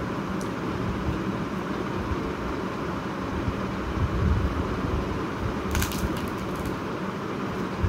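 Chewing a mouthful of luchi, then fingers tearing a luchi on a plate with a brief crackle about six seconds in, over a steady background hum.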